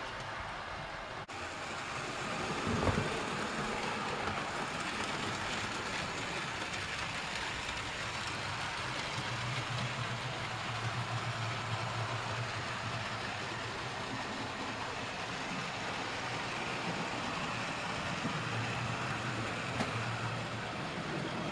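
00 gauge model train running on the layout: a steady hum from the locomotive's motor with the rumble of wheels on the rails, and a brief knock about three seconds in.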